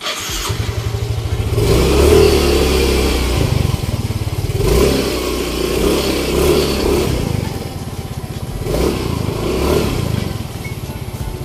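Yamaha Mio i125 scooter's 125 cc single-cylinder engine revved up and down about five times with throttle twists, its CVT running with the stock clutch spring refitted so that it engages at lower revs.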